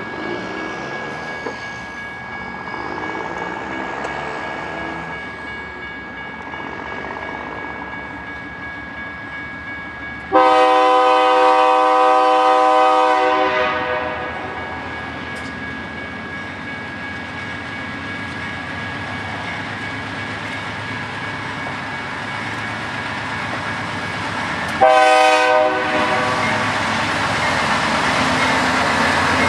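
BNSF diesel locomotive sounding its Nathan K3 air horn: one long blast about a third of the way in, then a short blast near the end. Between and under the horn, the lead GE Dash 9-44CW units' diesel engines and the train's wheels rumble steadily and grow louder as the loaded autorack train accelerates toward the camera.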